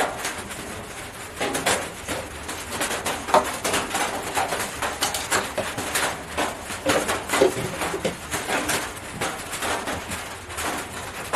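Chicken held in the lap giving short, low, cooing calls every second or two, mixed with clicks and knocks of a plastic cup and a blender lid being handled.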